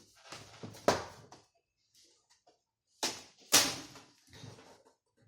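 Plastic front panel of a desktop computer case being unlatched and pulled off: sharp clacks and scrapes, loudest a little under a second in and again around three seconds in.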